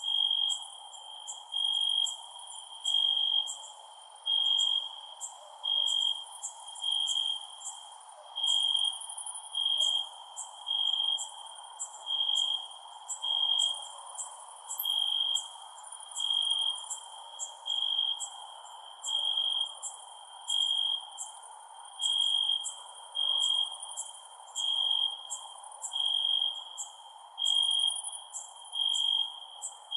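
Crickets chirping: one loud cricket gives a short trill about once a second, over faster, higher-pitched chirping from other insects and a steady background hiss.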